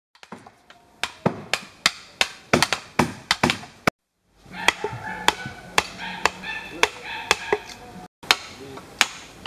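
Wooden mallet driving a steel chisel into timber by hand: a run of sharp knocks, about three a second, with two short breaks.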